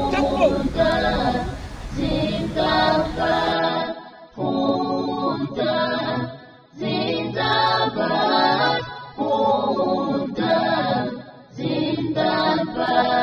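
A large group of voices chanting together in unison, phrase after phrase with short breaks between.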